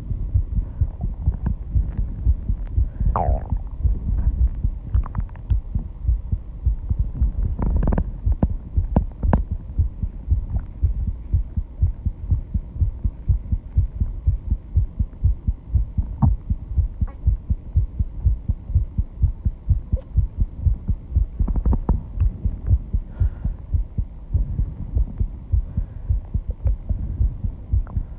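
A person's heartbeat, close-miked, thumping in a fast, steady rhythm after intense exercise.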